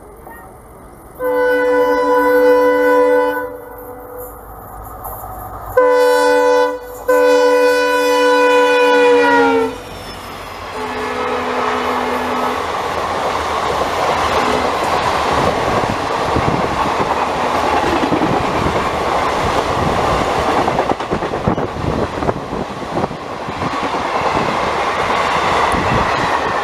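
WDP4D diesel locomotive sounding its multi-tone horn in three long blasts, the last dropping in pitch as it goes by, then a short lower blast. The express's coaches then rush past with rapid wheel clatter over the rail joints.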